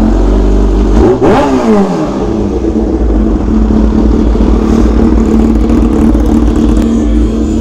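Kawasaki Ninja H2's supercharged inline-four, breathing through a stainless-steel H2R-replica exhaust, running just after start-up. It gives one quick rev that rises and falls about a second in, then settles into a steady idle.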